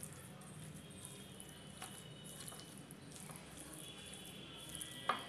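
Metal fork stirring thick semolina batter with grated carrot and cabbage in a bowl: faint wet squishing, with a few light clicks of the fork against the bowl, the sharpest near the end.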